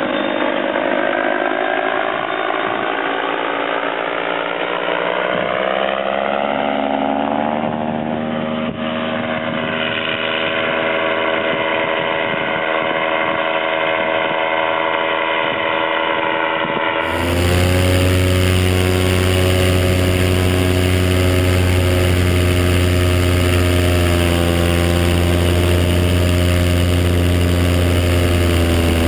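Paramotor engine running steadily, its pitch climbing over a few seconds as the throttle comes up. About two-thirds of the way in the sound switches to a deeper, fuller, steady engine note.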